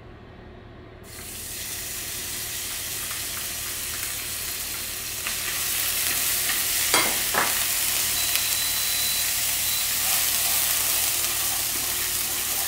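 Minced garlic and shallot sizzling in hot olive oil in a nonstick frying pan as they are stirred with chopsticks. The sizzle starts about a second in and gets louder about halfway through, with two short scrapes of the chopsticks on the pan about seven seconds in.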